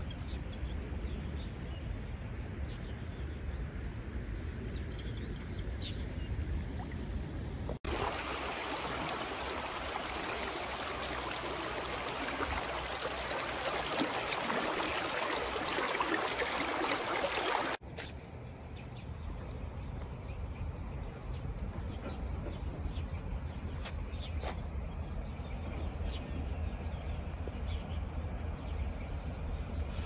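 Creek ambience of flowing water. A faint steady hiss with low rumble at first; about eight seconds in, a cut to a louder, dense rush of creek water running over rocks for about ten seconds; then back to a quieter steady hiss with a faint high tone.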